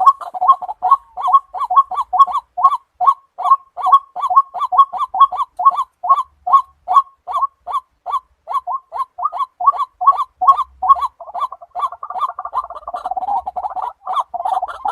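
White-breasted waterhen calling: a loud, monotonous series of harsh croaking notes, about four a second, running together into a denser jumbled chatter near the end.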